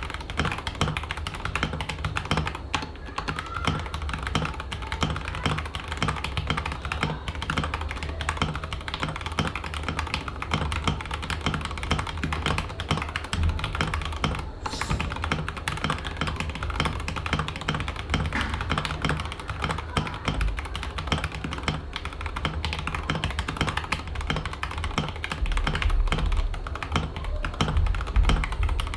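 Continuous fast typing on a mechanical keyboard: a dense, unbroken stream of keystroke clicks.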